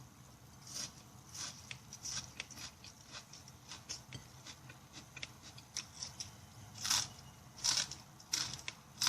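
Close-miked chewing and lip-smacking while eating, a string of irregular wet clicks and smacks, the loudest near the end.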